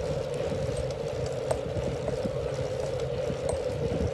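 Wind and handling rumble on a phone microphone carried while walking outdoors, over a steady hum, with a few light taps.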